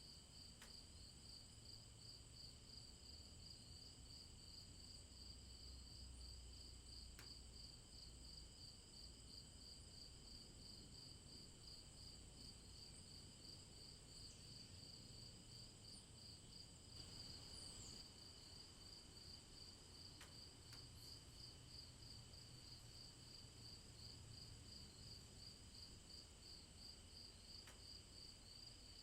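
Faint night-time rainforest insect chorus: a steady, rapidly pulsing trill with steady higher and lower buzzing tones, over a low rumble. A few faint ticks, and a short falling chirp a little past halfway.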